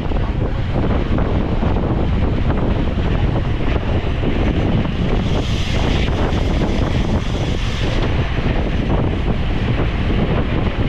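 Heavy wind noise rushing over the microphone of a bicycle rider's camera at race speed, steady and loud, turning hissier for a few seconds in the middle.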